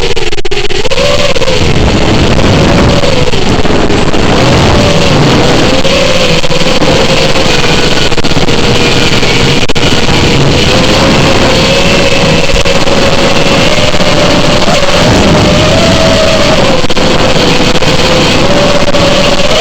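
FPV racing quadcopter's electric motors and propellers whining, the pitch rising and falling as the throttle changes, over a loud rushing of air.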